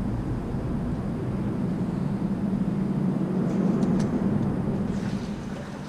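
A vehicle rumbling across the concrete bridge overhead, heard from underneath: a low rumble that swells to about four seconds in and then fades away.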